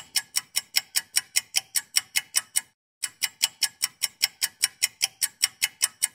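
Clock ticking fast and evenly, about five sharp, bright ticks a second, pausing briefly about three seconds in and cutting off suddenly near the end.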